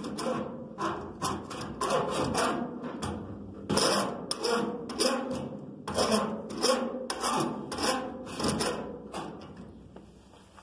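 Body file scraping across lumpy, freshly applied lead body solder on a steel car body panel, in repeated rasping strokes about two a second that tail off near the end. The file is cutting down the high lumps of lead.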